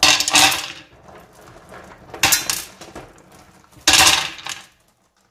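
Handfuls of washed stones dropped into a white-coated pressure cooker pot, clattering against the pot and each other three times in quick, short rattles.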